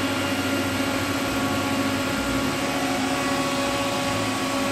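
Steady hum of a powered-up Haas OM-2A vertical machining center's electrical cabinet: cooling fans and electronics running, with several steady tones over an even whir.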